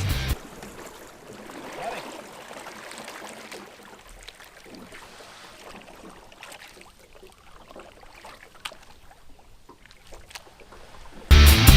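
Quiet outdoor river sound: faint water noise with scattered light knocks and clicks from a small boat. Rock music stops just after the start and comes back in loudly near the end.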